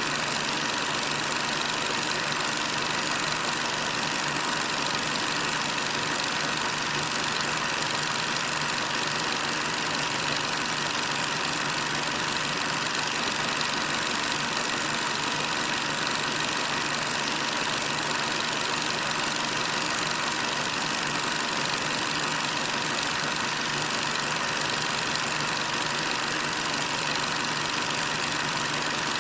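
Heavy tank engines running in a steady, unvarying drone.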